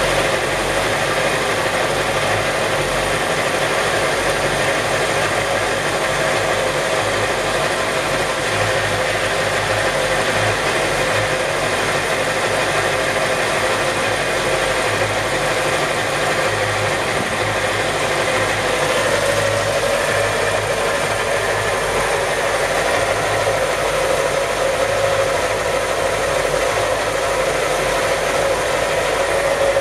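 Yamaha STR28 boat's inboard marine engine idling steadily.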